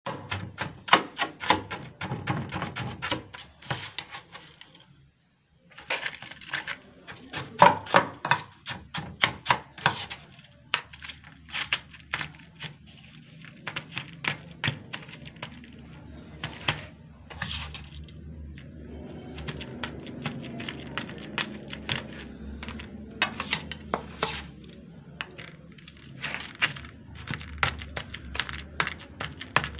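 Crunchy freezer frost crackling and crunching as it is worked in a stainless steel bowl and a glass: rapid crisp crackles that stop briefly about five seconds in, then go on.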